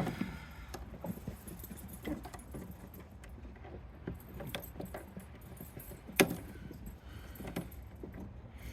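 Scattered small metallic clinks and rattles of hand tools and parts as a soda vending machine is taken apart for scrap, with one sharp clank about six seconds in.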